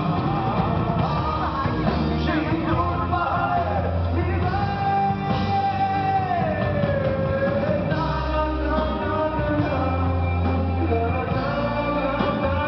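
Rock band playing live, with electric guitar and drums under a singer's voice. The voice holds long notes, one of which slides down in pitch about six seconds in.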